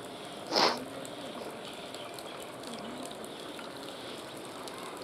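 Steady hiss of light rain, with faint bird chirps. About half a second in, one short, loud, harsh burst stands out above it.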